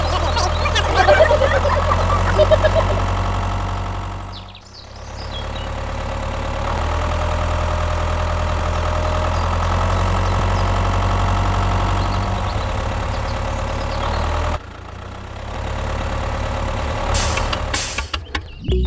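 A motor running steadily with a low hum. It fades out briefly about four and a half seconds in, then drops sharply in level near fifteen seconds in.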